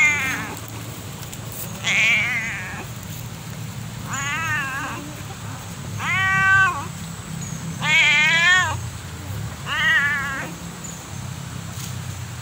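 A white domestic cat meowing over and over, about once every two seconds. Each meow lasts about a second and has a wavering pitch.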